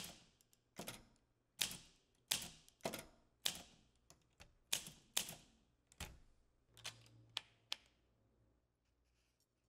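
Olympia manual typewriter keys striking the paper: about a dozen separate clacks at an uneven typing pace, stopping a couple of seconds before the end.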